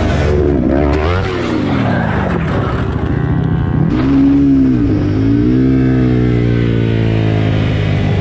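Sport motorcycle engine running hard at high revs, its pitch falling and climbing again and again as the rider shifts gears and works the throttle; a second motorcycle's engine is heard alongside near the start.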